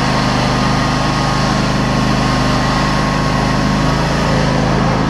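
Riding lawn mower engine running steadily close to the microphone, a continuous drone whose pitch shifts slightly about four seconds in.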